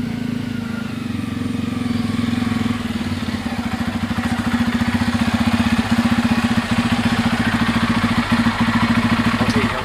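Bajaj Pulsar F250's single-cylinder engine running at low speed with a steady pulse as the motorcycle rides up over grass and pulls up close, growing louder over the first four or five seconds.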